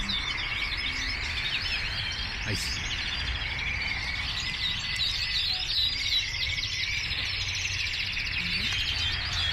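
Many caged canaries chirping and singing at once, a continuous high twittering of overlapping quick calls.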